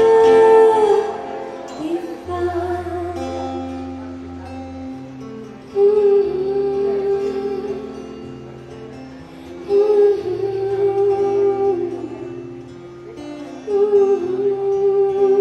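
A woman singing a slow song live with long held notes, accompanied by a fingerpicked acoustic guitar. A new sung phrase begins about every four seconds, each starting loud and fading.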